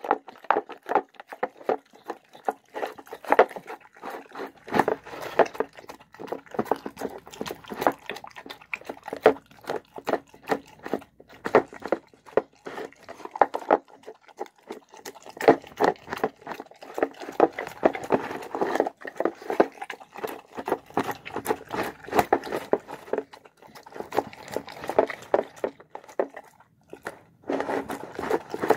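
Dog eating shredded chicken with rice and vegetables from a bowl: a quick, continuous run of chewing sounds, with a short pause near the end.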